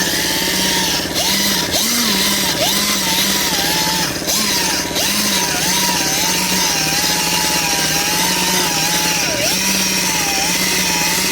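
Power sander running against an aluminium wheel, wet-sanding out curb rash with fine 3000-grit paper; its motor whine keeps dipping and recovering in pitch as the pad is pressed into the rim.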